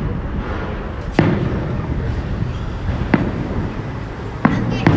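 Aerial fireworks shells bursting: a sharp bang about a second in, another about three seconds in, and two close together near the end, each followed by a brief low rumble.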